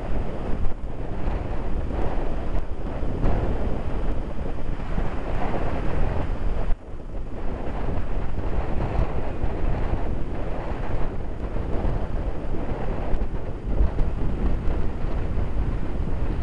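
Strong wind buffeting the microphone: a steady low rush that gusts up and down, dropping out briefly about seven seconds in.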